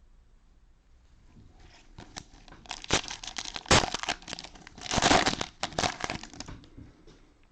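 Cellophane wrapper of a trading-card cello pack being torn open and crinkled by hand, with sharp crackles about three seconds in and a dense stretch of crinkling a little after five seconds.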